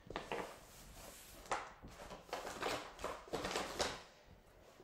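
Rummaging through empty toiletry containers: rustling and light knocks as bottles and tubes are handled and picked up, in a string of short, irregular noises.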